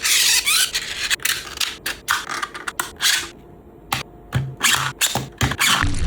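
3D-printed plastic parts scraping and rubbing against each other as they are worked by hand, in a series of short, irregular strokes with a brief pause a little over three seconds in.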